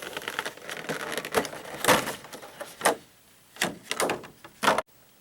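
Cardboard and plastic packaging being handled: a scraping, rustling slide for about two seconds, then a handful of short sharp knocks and scrapes as pieces are lifted out.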